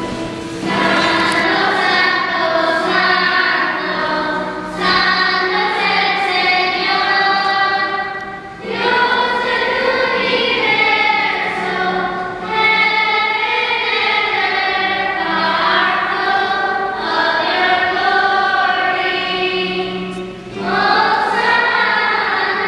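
A choir singing a hymn in long held phrases, with short breaks between them.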